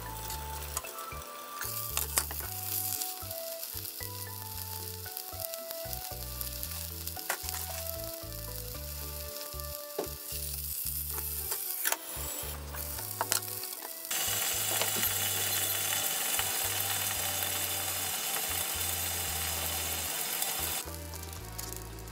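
Chicken breast sizzling in oil in a frying pan, with a few sharp knocks along the way; the sizzle gets much louder about two-thirds of the way through and stops shortly before the end. Background music plays throughout.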